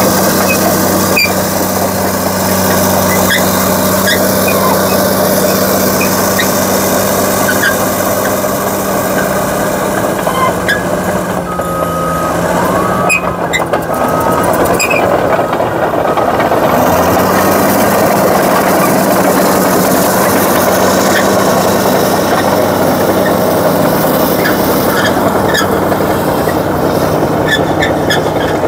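Caterpillar D6T XL bulldozer's diesel engine running steadily, with short squeaks and clicks scattered throughout. The engine hum dips for a few seconds midway and then comes back, and a brief steady high tone sounds about twelve seconds in.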